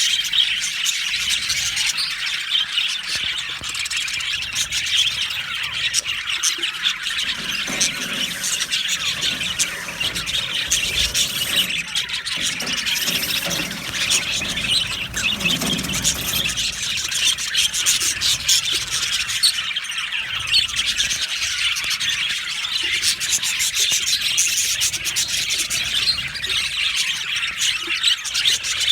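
A flock of budgerigars chattering, chirping and squawking continuously, with many overlapping high warbles and short calls.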